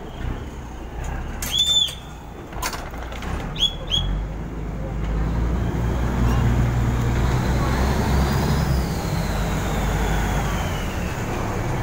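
A crew member's whistle blown once, then twice in quick succession: the express boat's signal to the pilot to pull away. About five seconds in, the boat's engine rises to a steady low rumble as it gets under way.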